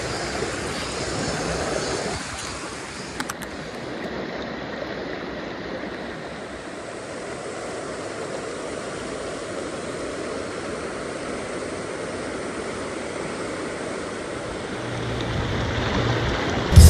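Mountain river flowing fast: a steady rush of water, with two faint clicks about three seconds in.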